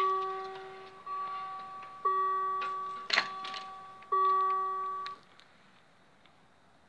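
Level-crossing warning bell striking about once a second, each stroke ringing out and fading, then stopping a little after five seconds in. A brief rattle about three seconds in.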